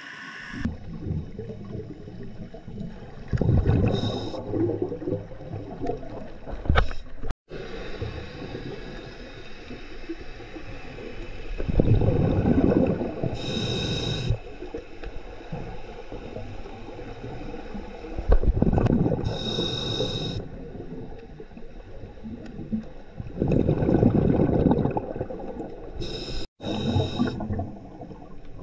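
Scuba diver breathing through a regulator underwater: a rush of exhaled bubbles every five or six seconds, some with a high regulator hiss, over a steady underwater rumble. The sound cuts out briefly twice.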